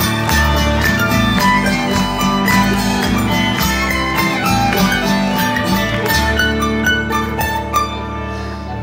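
Live bluegrass string band: fiddle, acoustic guitars, mandolins and upright bass playing a busy picked and strummed tune over a steady bass line. Near the end the picking stops and the last notes are left ringing.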